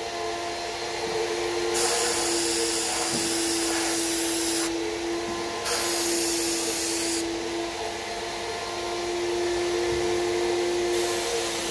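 QTech HVLP turbine paint sprayer: the turbine blower motor runs with a steady whine. The spray gun's hiss of air and paint comes in three bursts, about two seconds in, around six seconds in, and again near the end, as the trigger is pulled and released.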